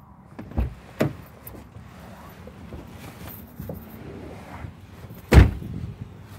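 A Jeep's driver's door being opened, with a couple of sharp clicks from the handle and latch about a second in, then slammed shut with a heavy thud about five seconds in.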